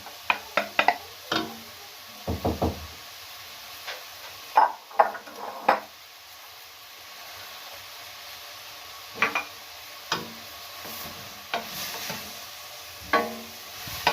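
Leek and grated carrot sizzling steadily in melted butter in a cooking pot. A spoon stirs them, knocking and scraping against the pot in short clusters, with a few duller thumps about two seconds in.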